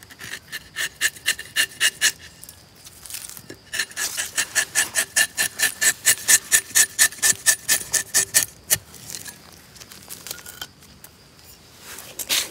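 Rubber-tapping knife shaving a thin strip of bark from a rubber tree's tapping cut in quick short strokes. It makes a rhythmic rasping of about five strokes a second, in two runs with a pause between them.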